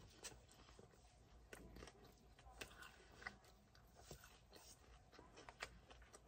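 Faint chewing of a crispy folded pizza crust: a scatter of soft, irregular crunches from a mouthful of Pizza Hut Melt.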